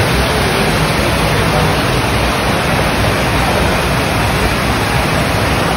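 Steady, loud rush of pumped water pouring up the sheet-wave surf simulator's padded slope, like a constant torrent.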